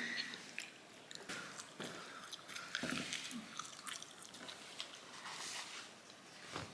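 Cake being eaten: quiet chewing and scattered small clicks and soft knocks.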